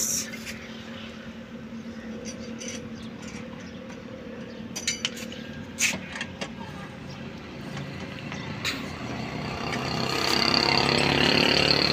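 A motor vehicle's engine runs steadily and grows louder from about nine seconds in. A few metallic clicks and clinks, including a quick rattling run about five seconds in, come from a wheel wrench working the nuts of a car's rear wheel.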